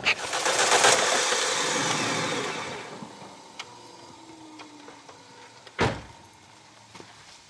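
Compression tester's pressure-release valve venting the trapped air with a loud hiss that fades away over about two seconds. A single thump comes near the end.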